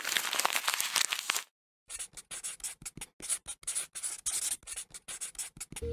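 Writing on paper: a steady scratching for about a second and a half, a short pause, then a run of quick, short scratchy strokes of handwriting.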